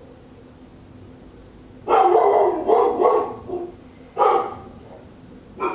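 A dog barking: a burst of several barks about two seconds in, another bark about four seconds in, and a short one near the end.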